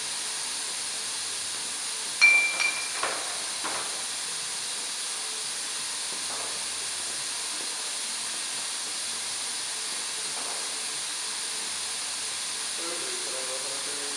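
Manual beer bottle filler hissing steadily as beer and gas flow into two glass bottles. A little over two seconds in come three or four sharp clinks, the first and loudest ringing briefly.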